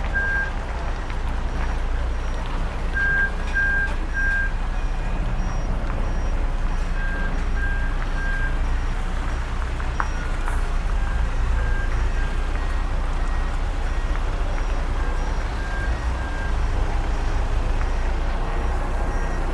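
Diesel engine of a heavy construction machine running steadily while its reverse alarm beeps in short runs of about three, repeating every few seconds, as the machine backs down off a semi truck trailer.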